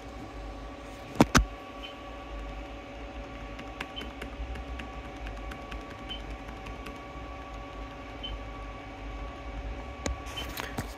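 Keys pressed on a Dell Latitude 5550 laptop keyboard while the machine boots into BIOS: two sharp clicks about a second in, then light taps about every two seconds and one more click near the end, over a steady hum.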